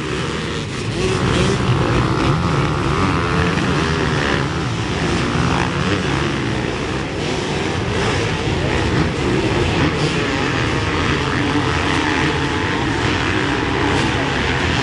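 Motor engines running as a continuous loud drone, with no break.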